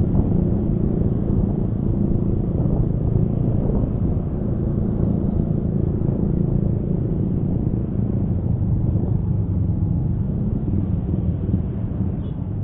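Honda Scoopy automatic scooter riding at a steady pace, with an even engine drone mixed with road and wind noise.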